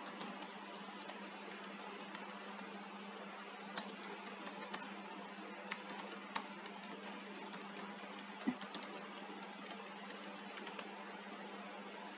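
Faint computer keyboard typing: irregular keystroke clicks, with one harder knock about eight and a half seconds in, over a steady low hum and hiss.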